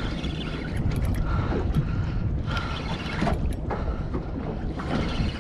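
A boat's engine rumbling, with wind on the microphone. Over it, a Shimano Stella spinning reel is cranked in spurts, giving a faint whine that comes and goes and a few sharp clicks, as a hooked fish is reeled in.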